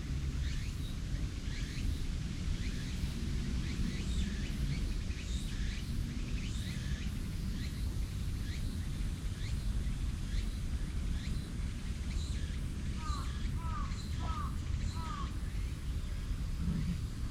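Outdoor ambience with a steady low rumble and small birds chirping over and over in short, high, falling notes. About thirteen seconds in, a lower call repeats four times in quick succession.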